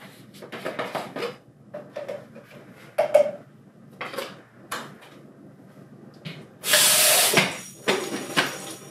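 Plastic clicks and knocks of a shaker bottle's lid and a pre-workout tub being handled and tapped, then, near the end, a short rush of tap water into the plastic shaker cup.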